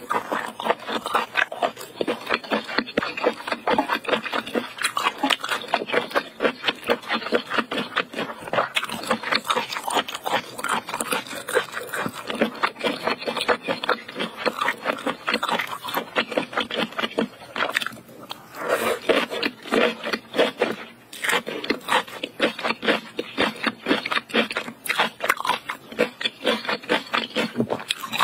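Close-miked chewing of spicy braised octopus: a dense run of mouth clicks and smacks, many a second, with two short pauses about two-thirds of the way through.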